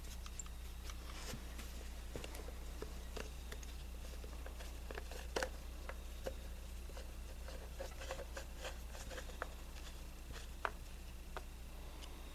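Faint, irregular clicks and light taps of hand tools and small metal parts being handled, over a steady low hum.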